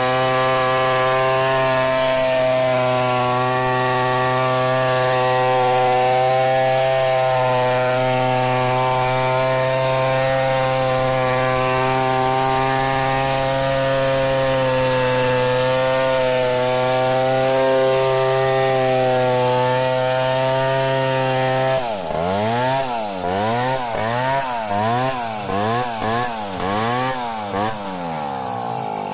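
Stihl 070 two-stroke chainsaw running steadily at high revs under load, ripping lengthwise through a log. After about twenty seconds the cut ends and the engine is revved up and down over and over, a little faster than once a second.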